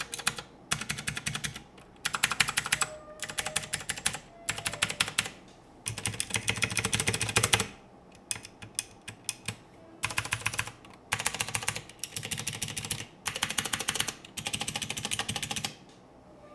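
Typing on an AKKO 3084 mechanical keyboard: runs of rapid key clacks, each lasting a second or two, broken by short pauses.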